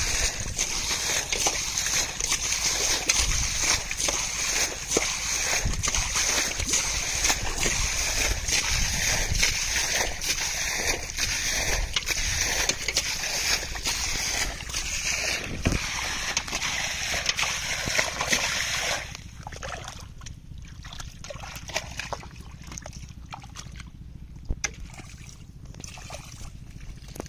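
Muddy water splashing and sloshing as a steel bowl scoops it out of a shallow drained pond and throws it aside, with hands working in wet mud. A steady high hiss runs beneath the splashes and cuts off abruptly about two-thirds of the way through, leaving quieter, scattered squelches and drips.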